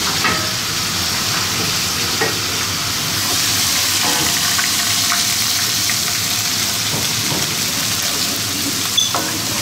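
Cumin seeds sizzling in hot oil in large aluminium stockpots, a steady frying hiss. A few light clinks come from a spoon stirring the pots.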